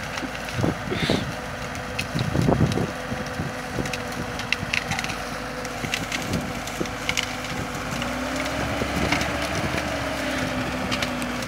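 Deutz-Fahr Agrotron K 110 tractor engine running steadily while its front loader shoves a pile of brush, the branches cracking and snapping throughout. The engine note rises slightly about eight seconds in.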